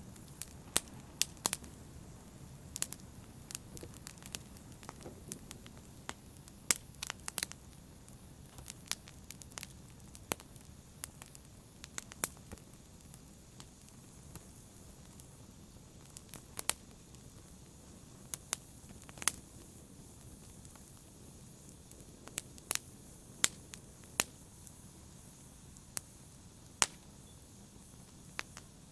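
Fire burning in a fireplace: a low, steady rumble and hiss of flames with sharp, irregular crackles.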